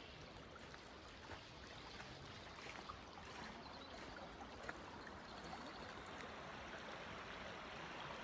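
Small creek babbling steadily, a little louder from about halfway through.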